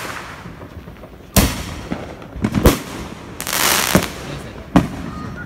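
Aerial fireworks going off: a sharp bang about a second and a half in, a quick cluster of bangs near the middle, a longer hissing stretch, and two more bangs toward the end.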